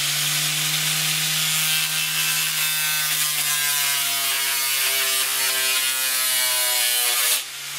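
Angle grinder with a homemade cardboard cutting disc running at full speed, the disc cutting through a thin wooden slat: a steady motor whine over a hissing rasp. It is switched off near the end and winds down.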